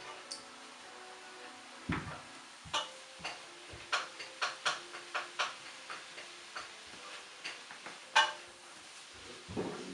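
Plastic Lego pieces clicking and clattering as they are handled, a string of irregular sharp clicks with a duller knock about two seconds in and another near the end.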